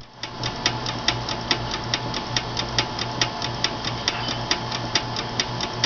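Small antique live-steam engine running on a miniature copper boiler, giving a light, even ticking of about five ticks a second over a low pulsing hum.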